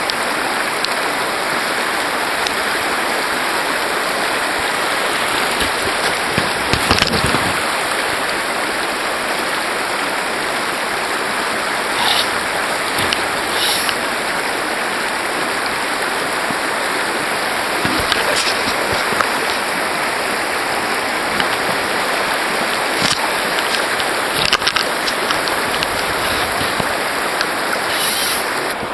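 Shallow river rushing steadily over a gravel riffle, with a few short louder noises now and then.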